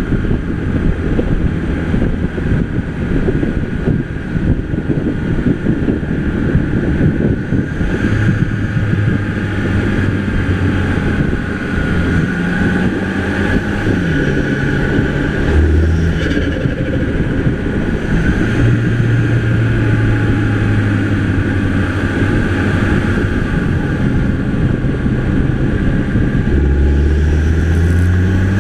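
Mini Cooper's 2.0-litre turbocharged four-cylinder engine being driven hard on a winding road, its note rising and falling with rpm through several throttle and gear changes, over steady road and wind noise.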